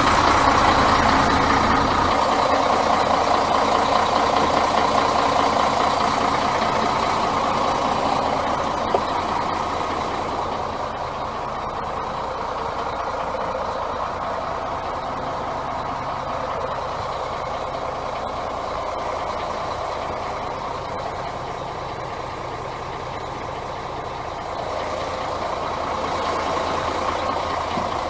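Mercedes-Benz Axor 1840 truck's six-cylinder diesel engine idling steadily. It is heard at first from beside the truck, then quieter and muffled from inside the cab from about a third of the way in. A single sharp click sounds just before the change.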